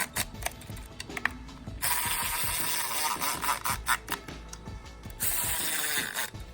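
Ratchet wrench clicking in quick strokes as bolts are run down, then a steadier whirring stretch from about two to five seconds in.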